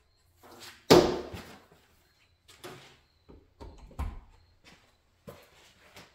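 Clunks and knocks of a chop saw being got out and set in place on a workbench: a sharp loud clunk about a second in, then a run of lighter knocks and a heavier thud near the middle.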